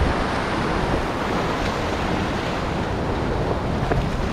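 Ocean surf washing over lava rocks, a steady rush of water, with wind buffeting the microphone.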